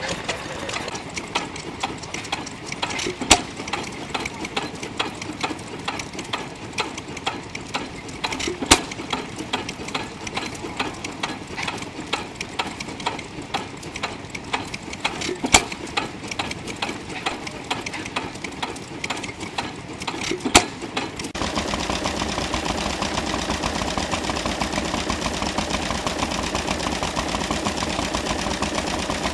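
Vintage stationary engines running in turn. First comes a rapid, steady clicking with a sharp bang every five to seven seconds. About two-thirds of the way through it changes suddenly to a smaller engine running with an even, busier and louder beat.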